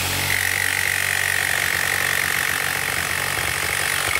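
Corded electric jigsaw running steadily, its blade cutting through the rubber sole of a steel-toe work boot, with a steady high whine.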